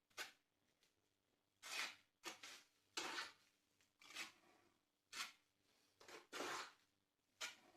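Bricklaying on a fireplace arch, setting its central wedge brick: a series of short scrapes and knocks from brick, mortar and trowel, about eight to ten spread over several seconds with quiet between them.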